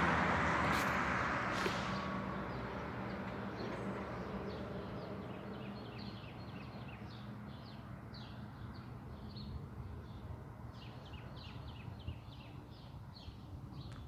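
Fire engine's running noise fading away over the first few seconds, leaving a faint low hum. Over it, small birds chirp in quick short notes, repeating again and again through the rest.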